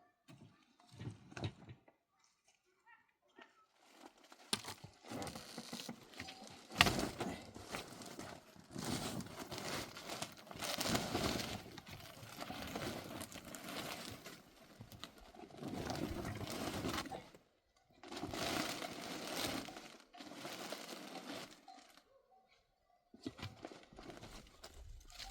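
Rustling and crumpling noises in irregular bursts, with brief pauses between them.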